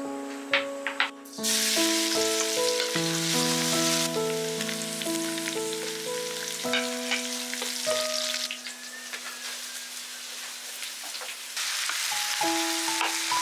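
Garlic and onion sizzling in hot oil in a wok; the sizzle starts suddenly about a second in. It eases, then swells again near the end as sliced vegetables are tipped in. Gentle background music plays throughout.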